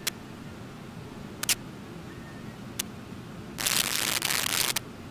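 Steady rush of river rapids, with a few sharp clicks in the first three seconds and a loud burst of hiss lasting about a second near the end.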